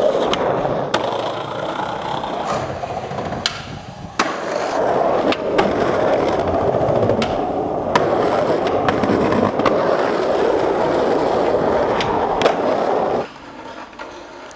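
Skateboard wheels rolling over rough asphalt in a steady grinding rumble, with sharp clacks from the board now and then. It drops suddenly to a much quieter level about 13 seconds in.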